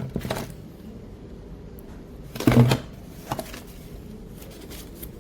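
A few short knocks and rattles, the loudest about two and a half seconds in, over a low steady hum.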